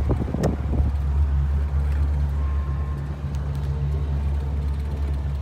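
Volvo Penta 5.0 GXi fuel-injected V8 sterndrive engine idling with a steady, even low hum; a few short knocks in the first half second.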